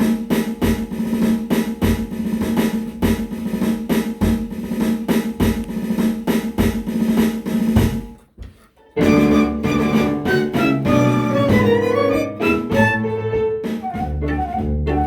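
Ensemble music: a steady drum beat over a held low note, a short break about eight seconds in, then a melody over a bass line.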